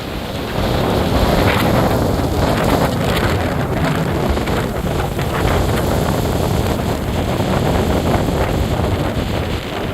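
Strong storm wind blowing hard across the microphone, loud and rough, swelling over the first second and then holding strong.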